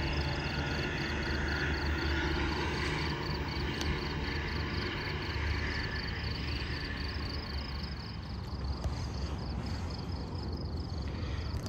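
Diesel locomotive engine running, a steady low drone whose rushing noise thins out after the first few seconds. A faint, even, high ticking runs alongside it, about three times a second.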